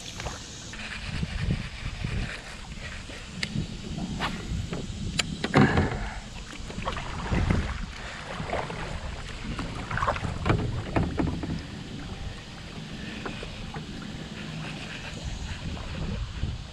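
Plastic kayak on flowing river water: water washing against the hull, with irregular knocks and clatter from paddle and gear handling. Several louder splashes or knocks come a little past the middle.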